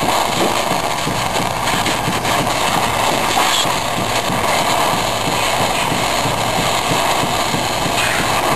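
Jeweller's soldering torch flame burning steadily with a constant rushing noise, heating a silver piece for sweat soldering before the solder has flowed.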